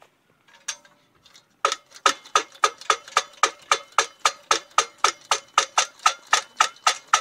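Hand pump on a vintage Thermos 8312 liquid-fuel lantern being worked, pressurising the fuel tank before lighting. A few light clicks, then about a second and a half in a steady run of squeaky pump strokes, about three a second.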